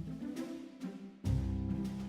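Background music with orchestral strings and a steady percussive beat, with a heavy low drum hit just past a second in.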